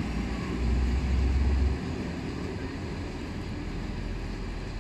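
ED2T electric train pulling away along the track with a low rumble. It is loudest for the first couple of seconds, then eases to a steadier, quieter rumble as the train moves off.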